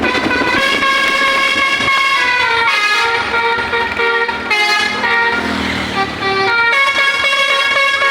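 An Indonesian bus's telolet horn, a multi-tone Basuri-type musical air horn, playing a tune of quickly changing notes, with a faster run of notes about two thirds of the way through.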